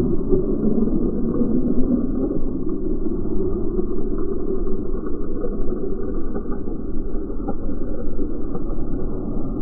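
Slowed-down outdoor sound from slow-motion footage: a steady, deep, muffled rumble with no high sounds in it.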